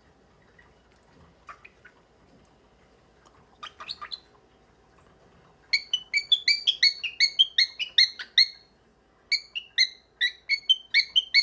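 Cockatiel chirping: a few faint chirps, then about halfway through a fast run of loud, short, downward-sliding chirps, about five a second, breaking off briefly and starting again.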